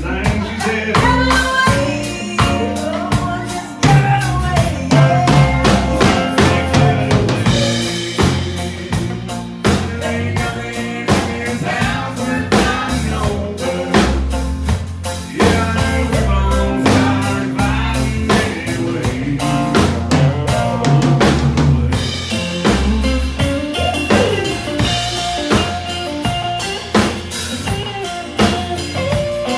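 Live country band playing a song with a steady drum-kit beat, acoustic and electric guitars; a fiddle is played near the end.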